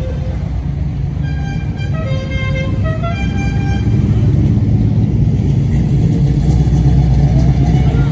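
A car horn sounds a short run of several notes at different pitches over the low rumble of cruising car engines; the engine rumble grows louder near the end as a car comes close.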